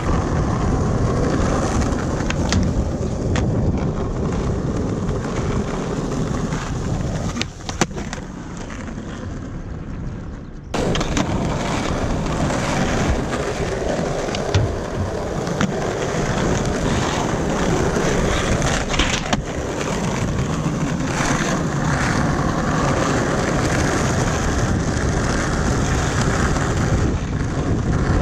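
Skateboard wheels rolling over smooth concrete, a continuous rumble, with a few sharp clacks from the board. The rumble drops away for about three seconds and comes back suddenly about a third of the way through.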